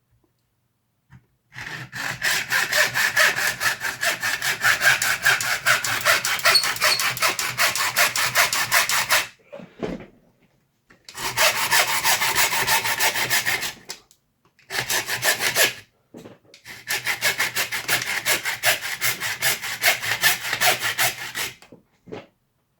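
Hacksaw cutting through the hard plastic shell of a toy blaster held in a vise, in fast back-and-forth strokes. It goes in four runs of sawing, separated by short pauses: a long run starting about a second and a half in, then three shorter ones.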